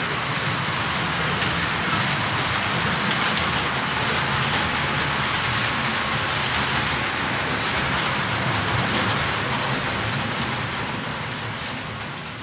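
H0-scale model freight train rolling across a metal truss bridge: a steady, dense rattle of wheels on track with a low motor hum underneath. It fades out near the end.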